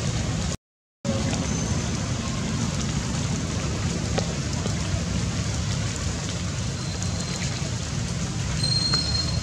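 Steady outdoor background noise, heaviest in the low range, with a brief dropout to silence just under a second in. No monkey cries are heard.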